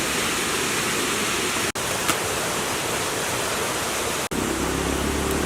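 A steady rushing noise like running water from a stream or waterfall, broken twice by split-second cuts to silence. After the second cut a low hum joins in.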